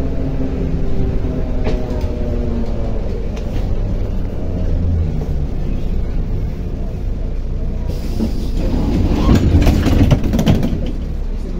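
MAZ-105 city bus heard from inside: engine and drivetrain running with a whine that falls in pitch over the first few seconds as the bus slows, then a steady low rumble. About eight seconds in comes a louder burst of rattling and hiss.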